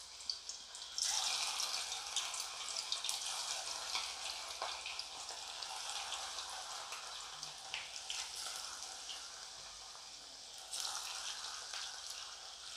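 Masala-marinated chicken pieces sizzling and crackling in hot coconut oil in a pan. The sizzle jumps louder about a second in and again near the end as more pieces go into the oil.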